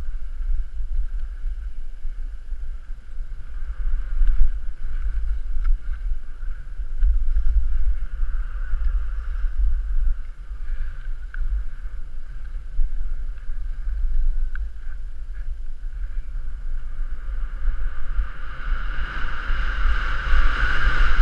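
Multirotor drone's propellers humming steadily, with heavy wind rumble on the on-board microphone; the hum grows louder near the end.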